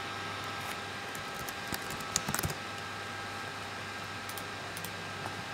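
Computer keyboard typing: a short run of key clicks about two seconds in, over a steady background hum.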